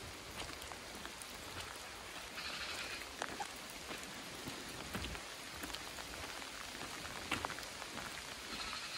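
Steady rain falling, a continuous patter of many small drop impacts, with a brief higher hiss about two and a half seconds in.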